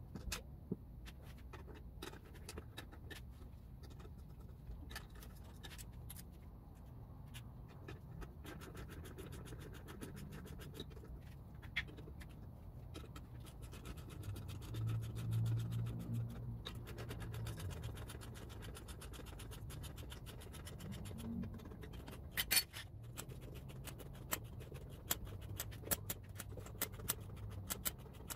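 Hand tools working on an outboard lower unit's water pump housing: scraping and scattered clicks, with a ratchet wrench clicking rapidly near the end as the housing bolts are run in. A low hum swells briefly about halfway through.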